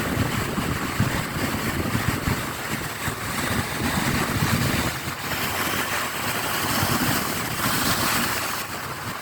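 Sea waves breaking on rocks and washing back, a continuous rushing hiss that swells about four seconds in and again near the end. Wind buffets the microphone with a low rumble.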